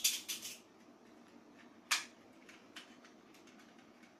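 Light handling noise from small toy cars and the tablecloth: a brief rustling scrape at the start, then a single sharp click about two seconds in and a few faint ticks.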